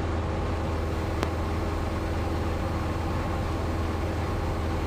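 Cessna 172's engine and propeller running steadily in cruise, a constant drone heard inside the cockpit, with a single click about a second in.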